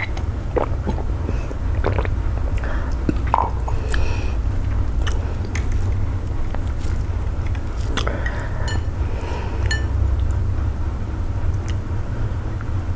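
Close-miked eating sounds: a swallow of water from a glass near the start, then scattered sticky clicks and soft squelches as a hand pinches off and shapes a piece of eba (stiff garri dough) and dips it into okra soup. A steady low hum lies underneath.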